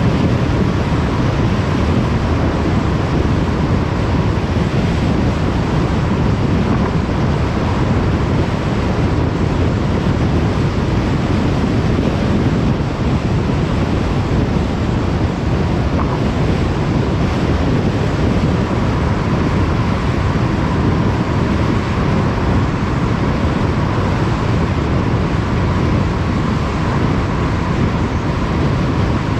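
Steady road noise of a car cruising on a motorway: constant tyre roar and wind rush, with a faint steady whine.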